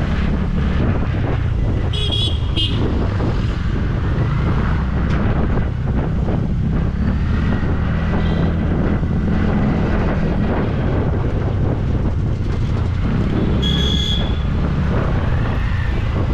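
Wind buffeting the microphone over the steady rumble of a scooter ride through city traffic at about 25 km/h. Short high-pitched horn toots sound about two seconds in and again near the end.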